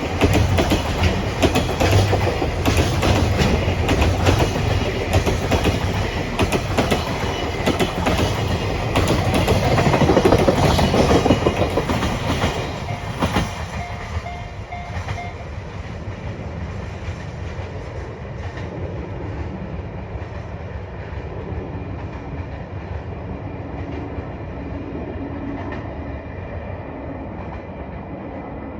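Train hauled by a JNR Class EF64 electric locomotive passing, its wheels clattering over the rail joints. It is loud for the first half, then fades about halfway through as the train moves off, leaving a quieter steady rumble.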